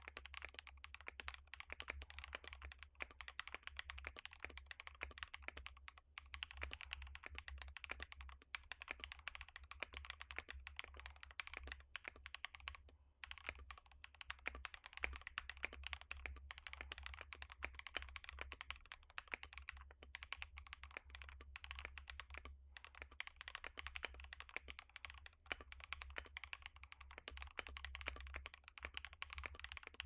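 Fast continuous typing on a Gray Studio Think 6.5 v2 gasket-mount mechanical keyboard with Panghu Giant v6 switches on an FR4 plate, an aluminium top and polycarbonate bottom case, only PCB foam, and C64 keycaps: a rapid, dense stream of key clacks with brief pauses about six, thirteen and twenty-three seconds in. A steady low hum runs underneath.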